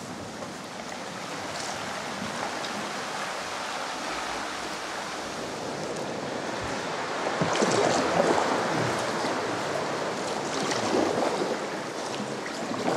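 Sea swell washing and sloshing inside a sea cave, with louder surges of splashing water about seven and a half and ten and a half seconds in.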